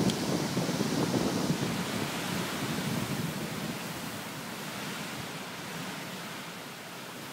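Wind buffeting the microphone: a rough, fluttering rush that is strongest for the first two or three seconds and then eases to a steadier, softer hiss. A faint short click comes right at the start.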